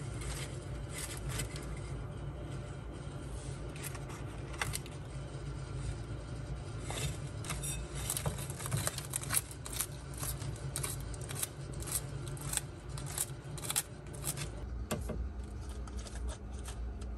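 Bearded dragon biting and chewing a fresh leafy green held out by hand: a run of crisp crunching clicks, densest in the middle of the stretch, over a steady low hum.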